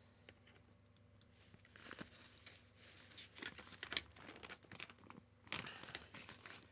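Faint rustling and crinkling of a collapsible octagonal softbox's fabric, with a few light clicks as its support rods are worked into place in the frame.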